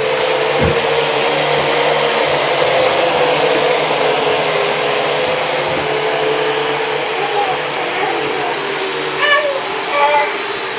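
Toy RC quadcopter's small electric motors and propellers whirring in flight, a steady buzzing whine that holds its pitch.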